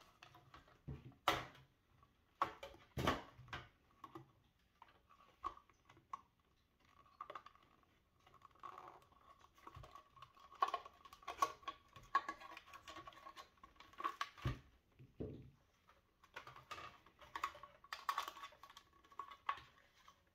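Hands working a plastic refrigerator water filter housing and its wiring: scattered light clicks, taps and scraping of plastic parts and wires, a few sharper knocks among them. A faint thin steady tone comes and goes underneath.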